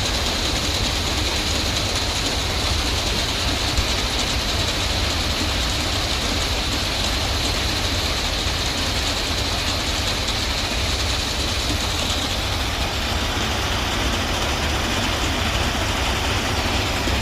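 Heavy railway track machine's engine running steadily with a deep rumble and a faint high hiss that eases off about three-quarters of the way through.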